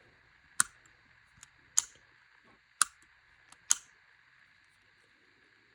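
Abu Garcia Black Max baitcasting reel's newly replaced thumb bar and clutch clicking as they are worked to test the free-spool release. There are four sharp clicks about a second apart, with fainter clicks just before the second and the fourth.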